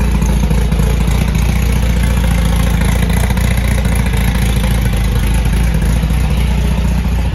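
1954 Volkswagen Barndoor bus's air-cooled flat-four engine, fitted with a performance cam and straight-cut gears, idling steadily.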